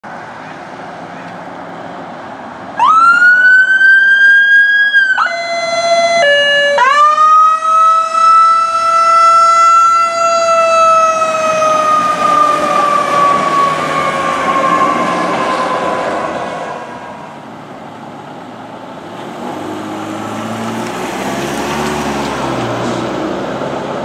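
Fire department emergency vehicle siren wailing up to a high held pitch about three seconds in, briefly changing to a lower stepped tone, then wailing again and sliding down in pitch as the vehicle passes and fades. Near the end a heavy truck engine is heard approaching, rising in pitch.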